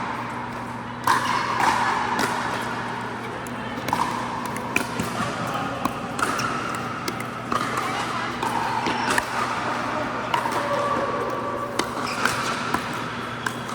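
Pickleball play: short sharp pops of paddles striking the plastic ball and the ball bouncing on the hard court, coming at irregular intervals over a steady low hum and a murmur of voices.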